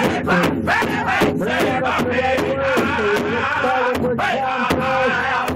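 Northern-style powwow drum group singing loud, high vocables in unison while beating a large hide powwow drum with beaters in a fast, even beat.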